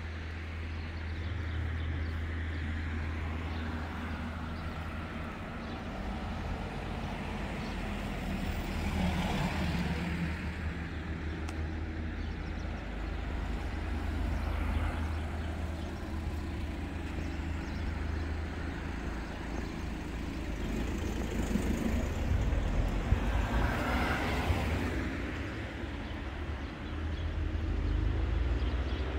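Road traffic: motor vehicles running and passing over a steady low rumble, swelling twice as vehicles go by.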